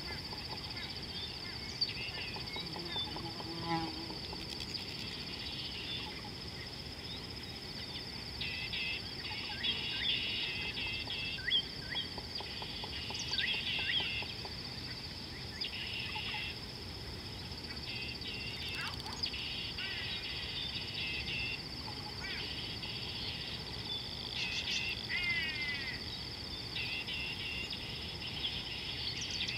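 Natural savanna riverside ambience: several birds calling and chattering repeatedly over a steady high-pitched insect drone.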